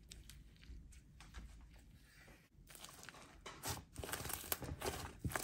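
Hands squishing, stretching and pressing soft clay-mixed slime, giving faint crackling and tearing sounds that grow louder and busier from about three and a half seconds in.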